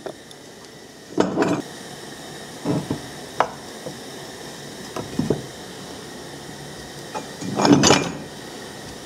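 The end cap and housing of a DC electric plow-pump motor being handled on a steel workbench: about five knocks and scrapes of metal on metal, the loudest near the end, over a faint steady hiss.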